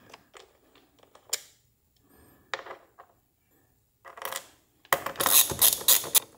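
Small metal battery-post adapters being handled and fitted by hand: scattered light clicks, then a dense run of clinking and rattling about five seconds in.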